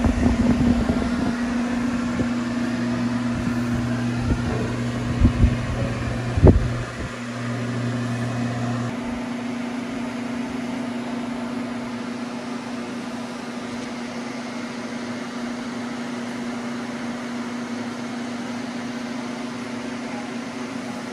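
Air-mover blower fan running with a steady hum, with a few knocks about five to six and a half seconds in.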